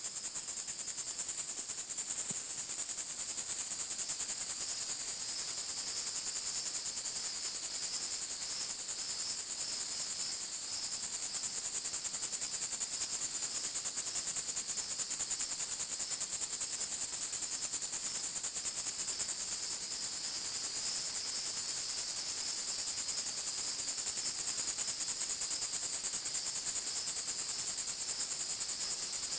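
Insects trilling in a continuous high-pitched chorus, a fast steady pulsing that never lets up.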